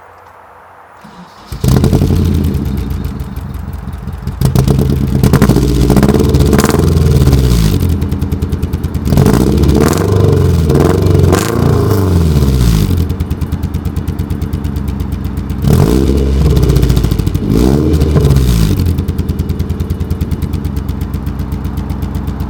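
1991 Nissan 240SX's 2.4-litre four-cylinder engine starts up about a second and a half in and runs with an uneven, pulsing idle: a misfire that the owner puts down to a bad distributor cap. It is revved up and let fall back three times.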